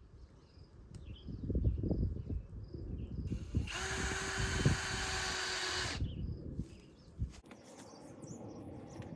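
Cordless power drill running steadily for about two and a half seconds, after a few knocks.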